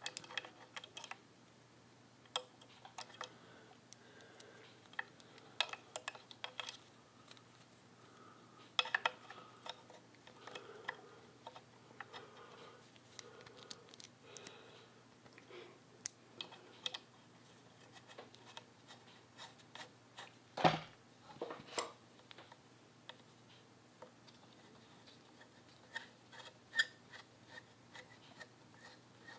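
Small metal parts of a Singer 15-91 sewing machine's bobbin winder clicking and tapping as they are handled and fitted onto the machine head, partly with a screwdriver: scattered light clicks throughout, with one louder knock about two-thirds of the way through.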